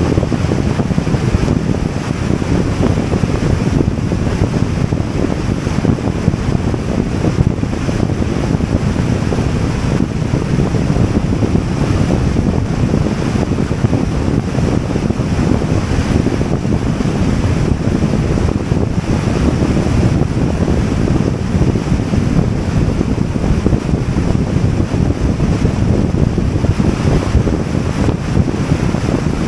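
Steady rushing wind buffeting the microphone, with the road noise of a vehicle driving at highway speed underneath.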